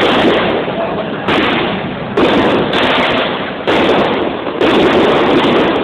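Fireworks going off in quick succession: a series of loud bangs roughly a second apart, each trailing off into a noisy rumble.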